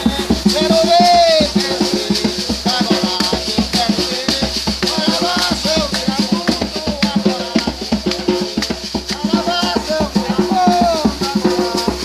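Music with a fast steady beat of shaker and drums, and a singing voice over it.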